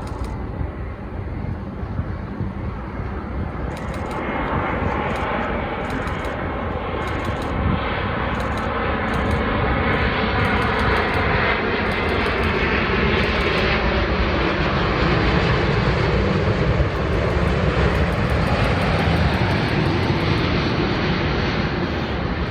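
Jet airliner on its landing approach passing overhead. Its engine noise builds from about four seconds in, with a whine that slowly falls in pitch as it goes over.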